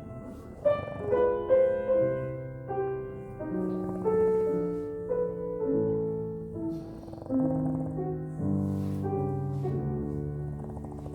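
Solo piano playing a slow piece of struck single notes and chords.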